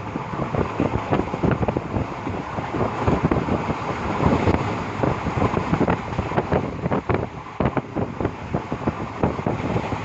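Moving train: steady running noise with wind buffeting the microphone and frequent irregular knocks and rattles.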